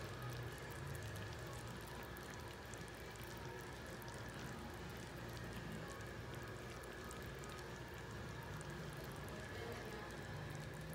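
Chicken wings simmering in a thickened Sprite, soy and oyster sauce in a pan: a faint, steady crackle of many small bubbles popping.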